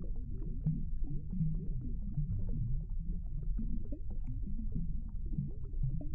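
Low, muffled underwater rumbling picked up by a submerged camera, with short wavering low tones and scattered faint clicks.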